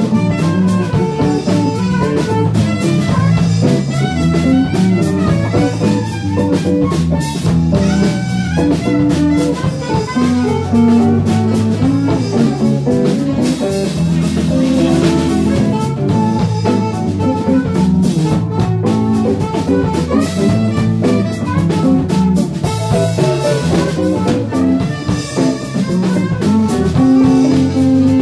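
Live band playing an instrumental jam in a bluesy jazz groove: drum kit, guitar, and a Fender electric bass carrying the low end.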